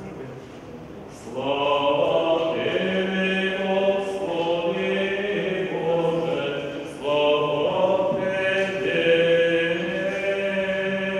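Orthodox liturgical chant: voices singing long held notes, in one phrase that begins about a second and a half in and a second that starts about seven seconds in.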